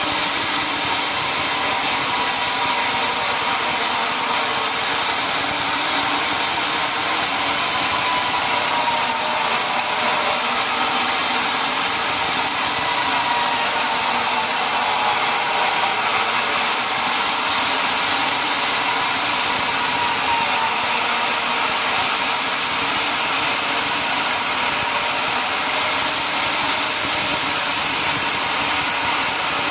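Sawmill machinery running steadily: a loud, even mechanical noise with a faint high whine held throughout.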